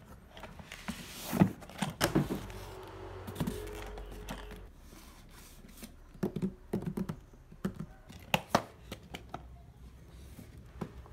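Cardboard laptop boxes being handled by hand: irregular knocks, taps and scrapes of cardboard as the boxed laptop is lifted out of its shipping carton and its outer sleeve is slid off, with the sharpest knocks about a second and a half in and again around eight and a half seconds.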